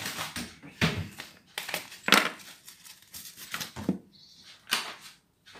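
Irregular rustling and crinkling of plastic packaging in uneven bursts, mixed with a few light knocks: the sound of a bag of flour being fetched and handled.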